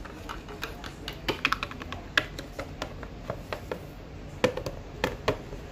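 Small plastic toy figurines and toy-house pieces being tapped and set down on a wooden tabletop by hand: a string of irregular light clicks and taps.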